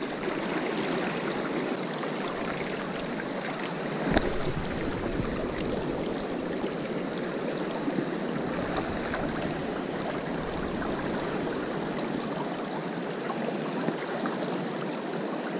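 Fast mountain river current rushing over stones, a steady wash of water, with one light knock about four seconds in.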